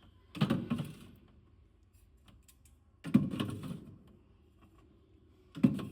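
Beer cans and mixer bottles being moved around on fridge shelves: three short bouts of clattering and clinking with sharp clicks, the first about a third of a second in, the second about three seconds in and the last near the end.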